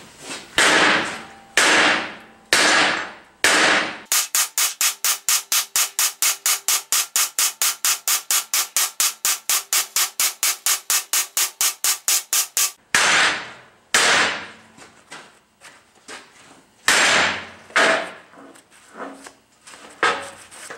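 Hammer blows on welded steel T-joint test pieces, beating them apart to test how strong the welds are. There are four heavy, ringing strikes, then a fast, even run of about five blows a second for some eight seconds, then a few more separate strikes.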